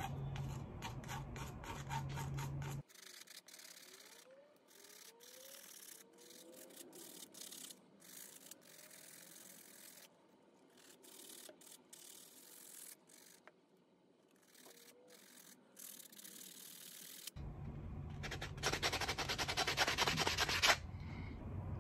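Sandpaper pad scrubbing rust and leftover baking soda paste off a steel carving gouge in quick back-and-forth strokes. The strokes are loudest and fastest near the end. At the start a plastic spoon scrapes the paste off the blade.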